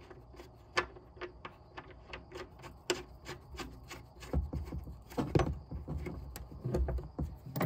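Light clicks and knocks, about two or three a second, with a few duller thumps from about four seconds in, as a rear seat and its mounting hardware are handled and lined up over the floor bolt holes.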